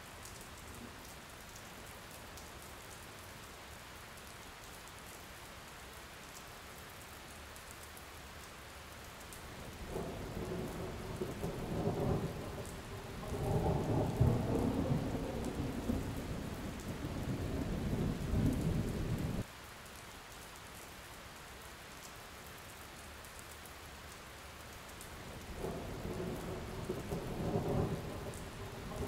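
Steady rain with rolling thunder. The thunder swells after about ten seconds, breaks off abruptly, then builds again near the end.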